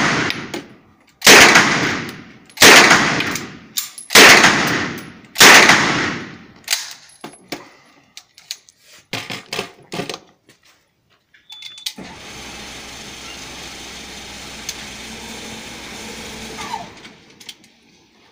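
Four single gunshots about a second and a half apart, each with a long echoing tail in an indoor shooting range, followed by a few faint clicks. From about twelve seconds in, the range's electric target carrier runs steadily for about five seconds as it brings the paper target back to the booth.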